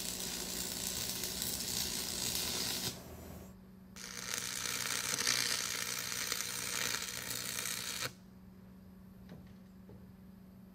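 Stick (arc) welder's arc crackling and sizzling as leveling nuts are tack-welded onto a steel tube. Two runs of about three to four seconds each, with a short break about three and a half seconds in; the arc stops about eight seconds in.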